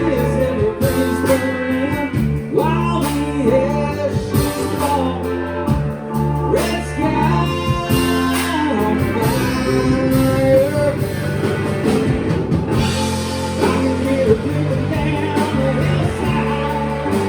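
Live band playing a rock song: guitar, bass, keyboards and drums, with singing.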